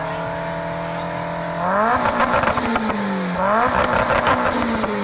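Car engine heard at the exhaust, running at a steady fast idle, then revved twice, about a second and a half apart. Each time the pitch climbs quickly, gets loudest and roughest at the top, then drops back.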